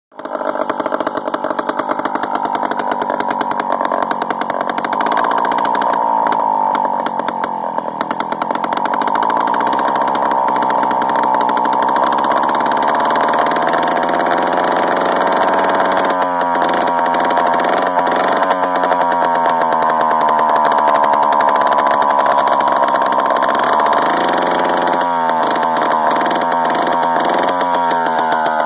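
Strunk Big Timber Pro two-stroke chainsaw running on its own, its engine note wavering up and down, with short breaks a few times in the second half. The carburettor is set very rich.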